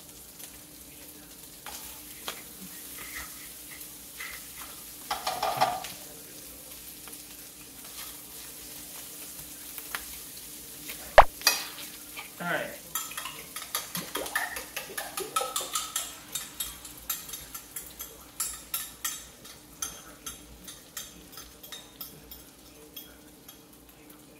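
Food sizzling as it fries in bacon oil in a pan, with a utensil stirring and scraping against the pan. One sharp knock about eleven seconds in, then quick repeated scraping clicks through most of the second half.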